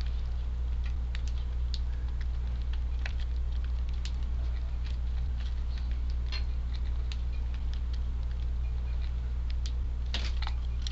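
Eurasian tree sparrows feeding: a scatter of light pecking ticks and brief high chirps, with a denser cluster near the end, over a steady low hum.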